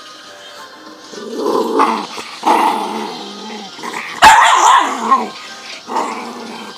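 Small dog growling at a person's hand and arm in repeated bursts that start about a second in, with a sudden sharp bark about four seconds in, the loudest sound.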